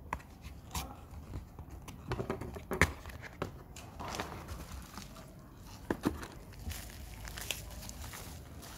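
Hands opening a small cardboard box and lifting out a phone wrapped in bubble wrap: scattered clicks and taps of cardboard flaps, with rustling and crinkling of the plastic wrap. The sharpest click comes about three seconds in.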